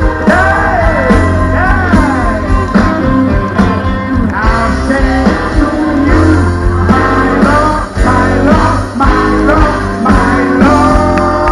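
Live blues-rock band playing loud through a concert PA, heard from the crowd: a lead line bending notes up and down over a steady bass and drum beat.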